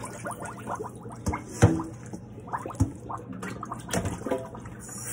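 Lime water pouring and dripping out of a tipped stainless steel bowl into a sink, with splashes and a few sharp knocks of the metal bowl, the loudest about one and a half seconds in. A tap starts running at the very end.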